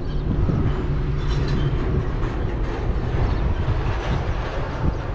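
Steady low rumble of a passing heavy vehicle.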